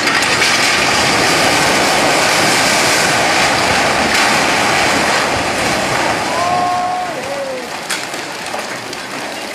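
A multi-storey building collapsing into floodwater: a loud rushing rumble of falling masonry that sets in abruptly, holds for about six seconds, then fades away.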